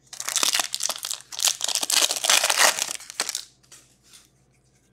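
Foil wrapper of an Upper Deck hockey card pack being torn open and crinkled by hand: a dense crackle lasting about three and a half seconds, then a few faint ticks.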